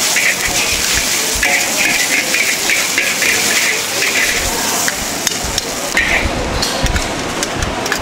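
Steady, dense hissing noise, with a series of sharp metallic clicks and clinks in the second half.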